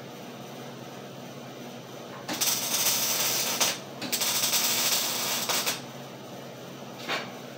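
Two MIG welds on a steel gate frame, each about a second and a half of crackling arc, starting about two seconds in and again about four seconds in, over a steady low shop hum.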